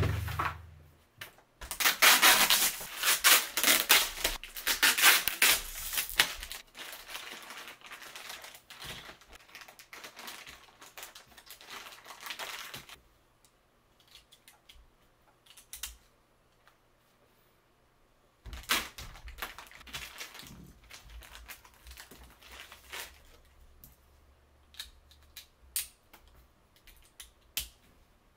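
A thump at the very start, then clear plastic parts bags crinkling and tearing as small Beyblade parts are unwrapped. Near the end come scattered sharp clicks of plastic and metal parts being handled and set down.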